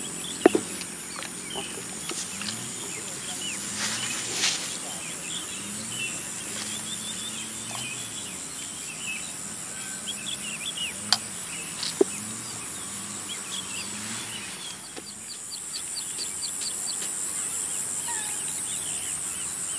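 Chickens clucking and small birds chirping over a steady high insect buzz, with a few sharp clicks.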